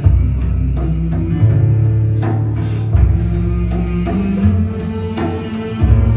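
Loud music with a deep bass line, drum hits and plucked strings.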